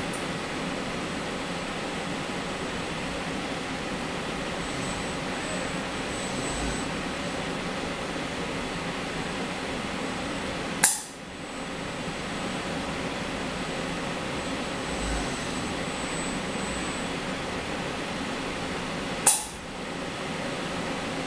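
Steady hum of laboratory automation equipment fans and ventilation while a robotic arm loads a plate into a centrifuge. Two sharp clicks come about eleven and nineteen seconds in, and a faint high whine is heard twice.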